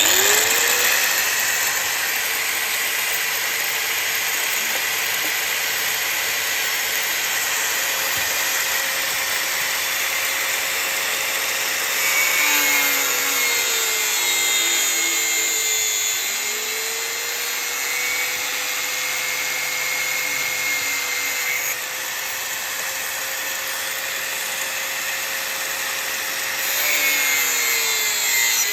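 Handheld electric power tool switched on: its motor spins up and runs at a steady whine under a hissing cutting noise. Twice, about 12 seconds in and again near the end, the pitch sags as the tool is pressed into the work and loaded, then recovers.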